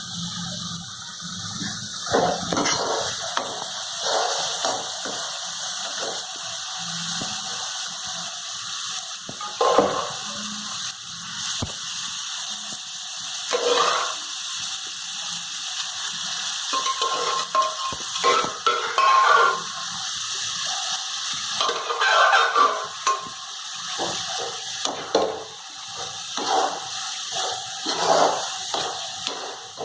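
Boiled vegetables being stirred into tomato-onion masala frying in a pan: a steady sizzle, with a spoon scraping and knocking against the pan at irregular moments.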